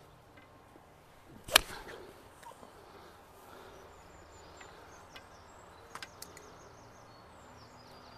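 A golf club striking a ball off the tee in one sharp strike about a second and a half in; the golfer reckons he hit it a bit heavy.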